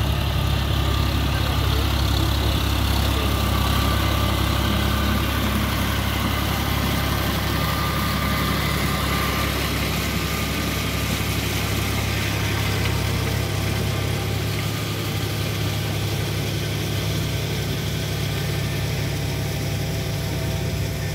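John Deere 5045D tractor's three-cylinder diesel engine running steadily under load as it pulls a rotavator through flooded paddy mud, growing a little quieter in the second half.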